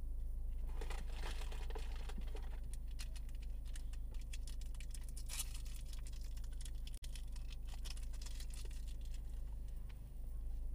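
Crinkling and rustling, a long run of quick small crackles as something crinkly is handled inside a stationary car, over a steady low cabin hum.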